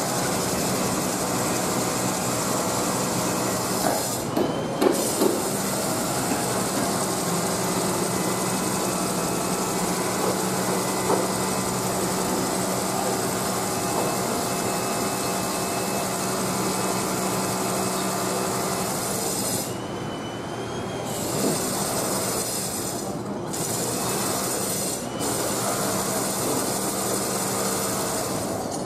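Electric passenger train running on the rails: a steady hum with high whining tones above it, a few sharp clicks about four to five seconds in, and a brief drop in the noise about twenty seconds in.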